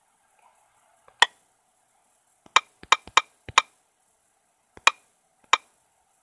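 A series of about seven sharp clicks at irregular intervals, with four of them close together in the middle, over a faint steady hum.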